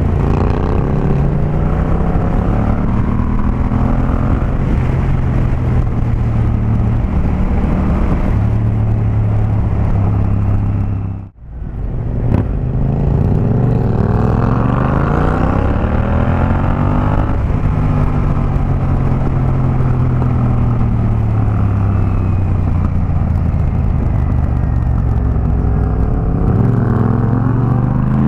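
Yamaha MT-07's parallel-twin engine through an Akrapovic 2-into-1 carbon exhaust, pulling hard up through the gears: the pitch rises in repeated sweeps and drops back at each shift. The sound cuts out briefly about eleven seconds in.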